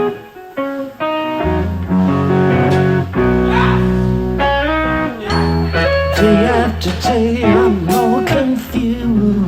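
Band playing an instrumental intro: guitars over a steady bass, with a lead line of bending, wavering notes in the second half.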